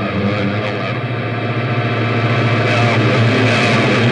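Reverse-audio ITC playback: a dense, choppy garble of chopped-up, reversed sound over a steady low hum. It starts abruptly and is played back for possible spirit voices.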